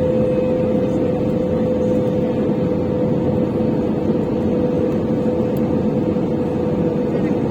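Cabin noise of an Airbus A320-200 in flight: a steady, even roar of engines and airflow with a constant hum running through it.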